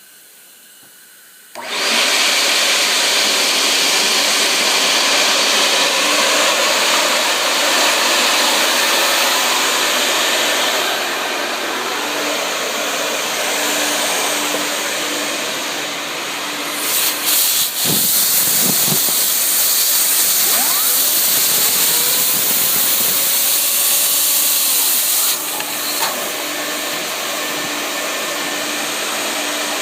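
Loud, steady rush of air from a vent-cleaning machine switched on about a second and a half in, blowing or drawing air through a dryer vent duct. A few knocks a little past the middle.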